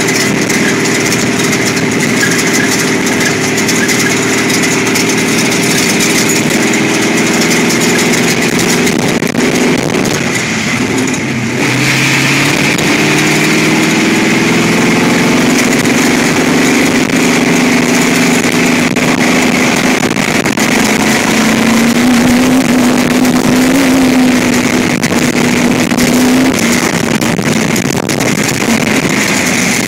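Sandrail dune buggy's engine running hard at speed, its pitch shifting with the throttle, under a steady rush of wind and tyre noise. About ten seconds in the engine eases off briefly, then picks back up.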